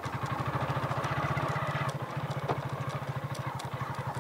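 Motorcycle engine running at a steady idle, an even low putter, with a single click about two and a half seconds in.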